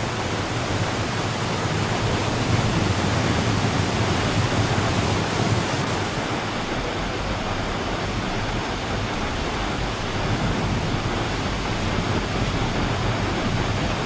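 Niagara Falls: the steady, dense rush of a huge volume of falling water, with no let-up; the highest hiss turns slightly duller about six seconds in.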